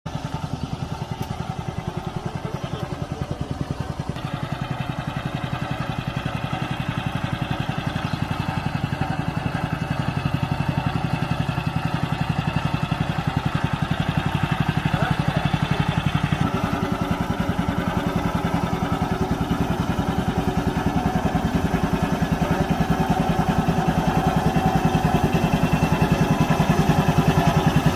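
Small engine of an agricultural power carrier running steadily with a rapid even chugging. Its note changes about four seconds in and again about sixteen seconds in, as the throttle or load shifts.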